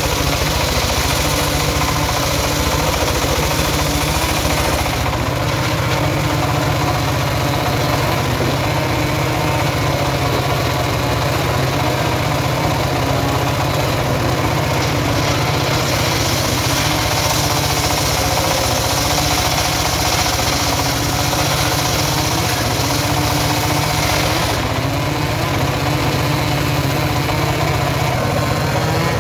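Stationary diesel engine running steadily, belt-driving a homemade circular sawmill, with the saw blade ripping through timber at times.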